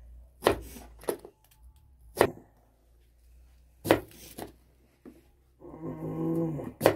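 Knife chopping on a wooden board, five sharp knocks at uneven intervals, with a brief low, steady-pitched sound just before the last knock.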